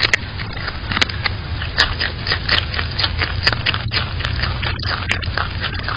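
Groundhog biting and chewing a chunk of raw vegetable right at the microphone: irregular crunching clicks, several a second, over a steady low hum.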